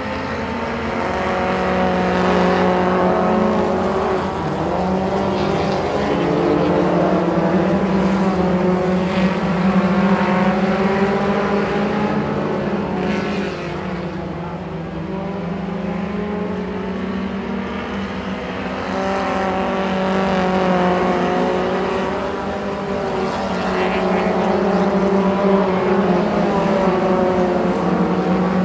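A pack of mini stock race cars running on a dirt oval, several engines at once, their pitches rising and falling and swelling louder each time the pack passes.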